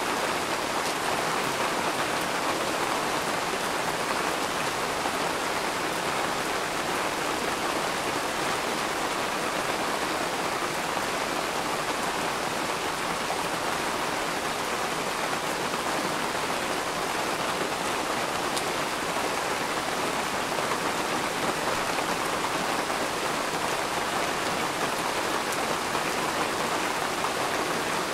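Rain falling steadily, an even wash of many drops with no thunder.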